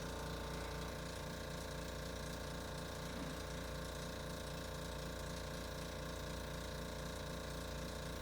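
Motorized chiropractic table mechanism running steadily during cervical distraction (neck traction), making an even mechanical ratcheting rhythm of about three beats a second.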